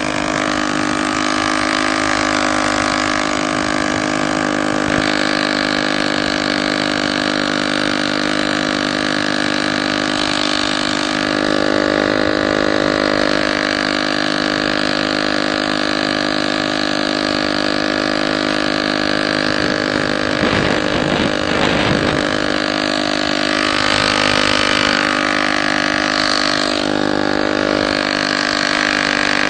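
Small two-stroke chainsaw engine powering a homemade bicycle, running steadily with only small changes in speed.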